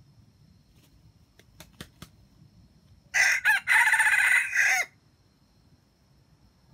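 Red junglefowl rooster crowing once, about three seconds in: a short, loud crow of under two seconds. A few faint clicks come a second or so before it.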